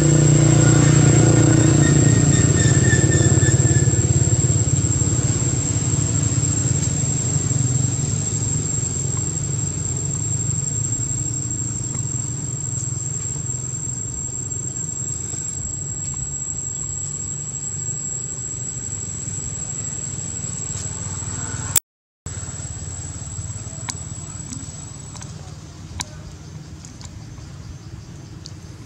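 Low engine rumble, loudest at first and slowly fading over about twenty seconds, with a steady high-pitched whine above it that stops shortly before the end. The sound cuts out completely for a moment near the end.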